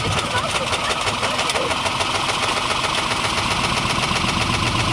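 GE washing machine spinning with drill steel and plastic junk in the drum: a steady motor hum under fast, continuous clattering and knocking as the contents bang around the off-balance load.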